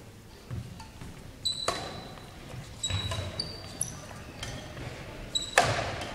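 Badminton rally on an indoor court: sharp racket hits on the shuttlecock, the loudest about a second and a half in and near the end, with short high squeaks of shoes on the floor and dull footfalls between them.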